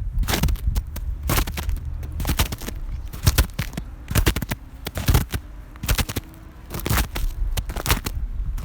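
Footsteps crunching through snow at a steady walking pace, about one step a second, each step a short crackling crunch.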